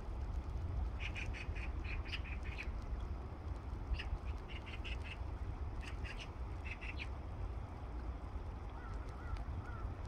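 Waterbirds calling in three bursts of quick, high-pitched notes, each lasting about a second, with a few faint chirps near the end, over a steady low rumble.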